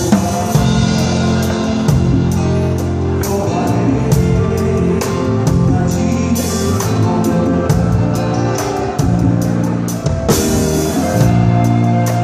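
Live band music with a drum kit: repeated drum and cymbal hits in a steady groove over sustained bass notes.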